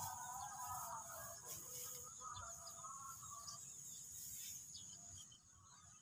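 Faint rice-paddy ambience: a steady high insect drone with scattered bird chirps over a low rustle. A voice trails off in the first second.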